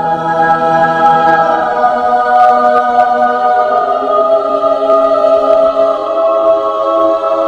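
A choir singing long held chords, a meme sound effect clip.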